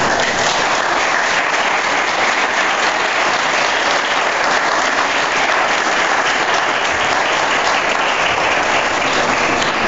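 An audience of many people applauding steadily, the clapping setting in all at once.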